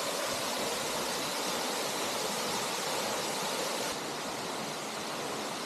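Waterfall rushing steadily into a natural pool, an even hiss of falling water that drops slightly in level about four seconds in.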